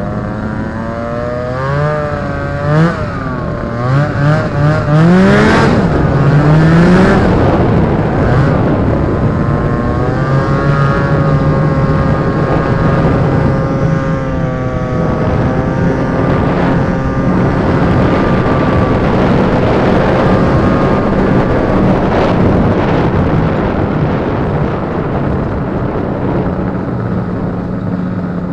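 The Rotax 503 two-stroke twin engine of a Polaris Indy Trail snowmobile under way. It revs up and down several times in the first few seconds through deep snow, then runs at a steady cruising speed.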